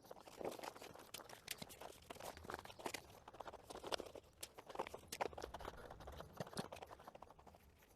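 Faint, scattered small clicks and crunching scrapes, irregular and without rhythm, from materials being handled.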